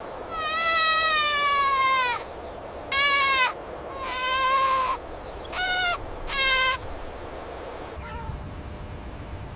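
An animal calling five times in the first seven seconds: high, drawn-out calls that each fall in pitch. The first call lasts about two seconds and the rest are shorter.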